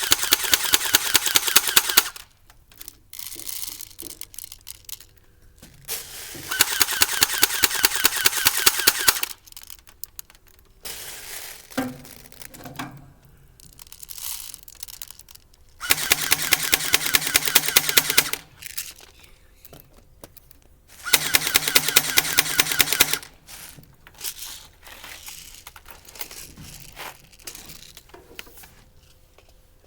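Airsoft gun firing on full auto: four bursts of rapid, evenly spaced shots, each about two to three seconds long, with quieter handling knocks between bursts.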